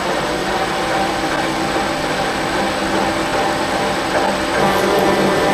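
Bridgeport milling machine driving a 7/8-inch twist drill through 1-inch mild steel plate, a steady machining sound as the drill opens out a 9/16-inch pilot hole, growing a little louder near the end.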